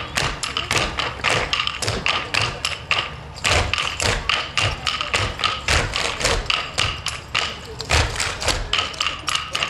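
Clogging taps striking the stage floor in quick, rhythmic strokes, with a short break about three seconds in.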